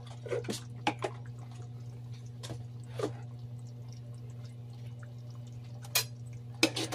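Sweet-and-sour sauce simmering in a wok, bubbles popping now and then at irregular intervals over a steady low hum.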